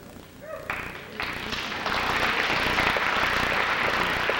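Audience applause that starts about a second in, builds, and then holds steady.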